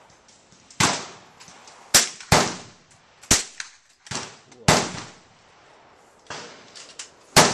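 Gunshots at a shooting range from more than one shooter: about seven sharp cracks at uneven spacing, two of them about a third of a second apart, each trailing off in a short echo.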